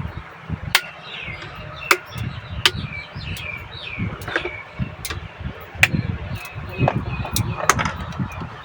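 Sharp knocks and clicks, roughly one a second, of an electric kettle's parts being handled and fitted back together, with birds chirping in the background.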